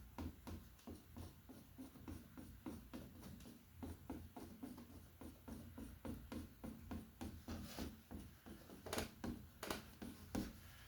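Palette knife dabbing and scraping acrylic paint onto a canvas in short repeated strokes, about three a second, with a few sharper taps near the end.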